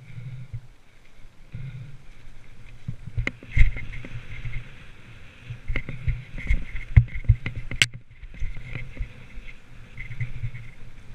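Mountain bike descending a dirt trail, heard from a helmet-mounted camera: wind buffeting the microphone and tyres rolling over dry leaves and dirt, with frequent knocks and rattles from the bike over bumps. A sharp clack stands out about eight seconds in.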